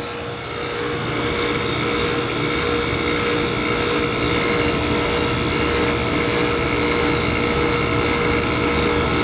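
Small window air conditioner running, its fan blowing and its rotary compressor pumping, swelling up over the first second into a steady hum with several high whining tones. The unit is making weird sounds while it slowly builds refrigerant pressure after a long idle.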